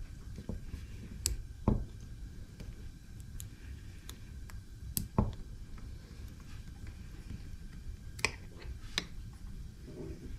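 Light scattered clicks and taps of a hex key and small screws being worked out of a brass model engine's bottom plate, the loudest about two and five seconds in.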